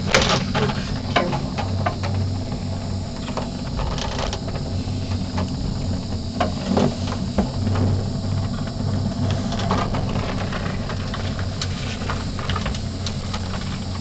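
Steady low rumble and hiss of a cable car gondola cabin travelling along its cable, with scattered light clicks and creaks.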